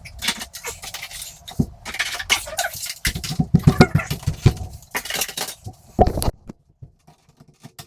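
Dog's water bowls clinking and knocking against each other and the sink as they are washed, in irregular clatters that stop about six and a half seconds in.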